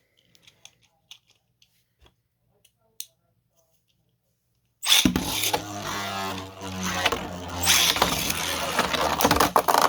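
A few faint clicks of handling, then about five seconds in two 3D-printed beyblades are launched and spin against each other in a plastic stadium: a steady whirring hum with repeated hard knocks as they clash.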